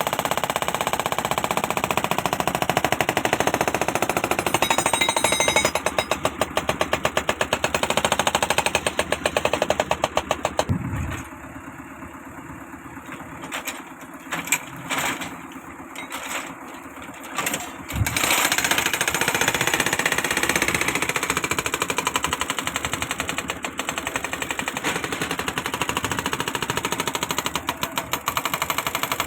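Sany SY35 mini excavator's diesel engine running with a fast, even pulsing. Partway through it drops much quieter for several seconds, with a few short bursts, then runs loud again.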